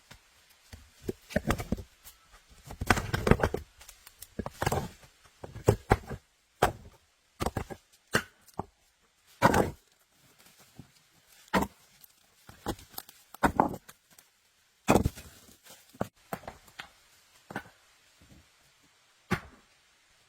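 Irregular knocks, thuds and scrapes of hand work with wood and stone, coming every second or so with short pauses between them.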